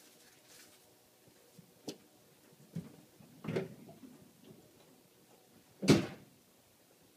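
A few scattered knocks and clunks from the 1997 Ford F-250 pickup, the loudest a sharp door-like clunk about six seconds in, as the truck is readied for a cold start.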